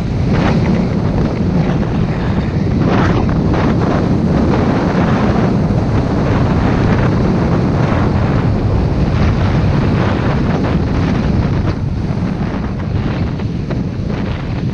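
Wind buffeting a GoPro's microphone during a downhill ski run, a loud low rumble with irregular gusty rushes, mixed with skis hissing and scraping over groomed snow.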